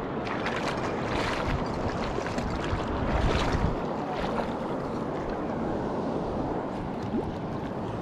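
Steady rush of river water with wind rumbling on the microphone.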